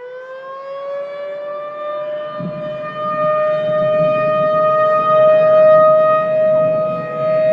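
A mechanical warning siren winding up, its pitch rising over the first second or so and then holding one long, steady wail, with a low rumble underneath from about two seconds in.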